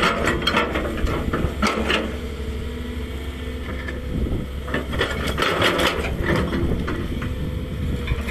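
Volvo crawler excavator's diesel engine running under load with a steady whine, while its bucket scrapes and scoops sand and gravel. Gravel rattles and scrapes in two spells: through the first two seconds, and again from about five to six and a half seconds in.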